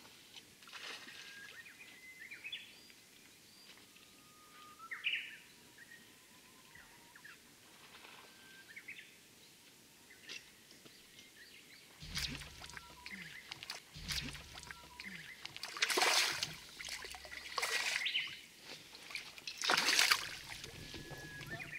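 Small birds calling now and then, then from about twelve seconds in a hooked herabuna (Japanese crucian carp) thrashing at the surface, with three loud splashes near the end.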